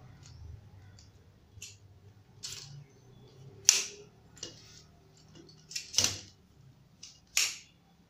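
Telescoping pole sections of a Yunteng VCT-1688 tripod-selfie stick being pulled out one after another: a string of sharp clicks and snaps, the loudest a little under four seconds in and again about six seconds in.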